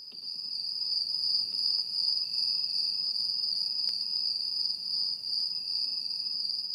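Recorded chorus of crickets, a steady high-pitched chirring that comes in suddenly from silence and holds, played as a stage sound effect.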